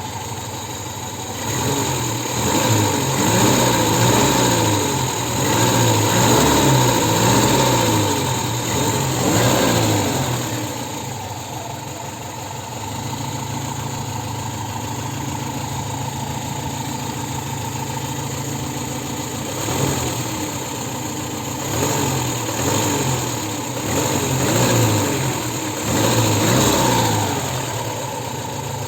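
UZAM four-cylinder petrol engine idling and blipped up and down repeatedly at low revs, in a run of quick rises and falls in the first ten seconds and another run after about twenty seconds. The owner hears a knock from the third cylinder at low revs as the engine speed changes.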